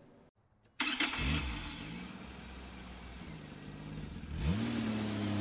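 A car engine starting and revving up, then running at a steady pitch; about four and a half seconds in it revs up again and holds at a higher, louder pitch.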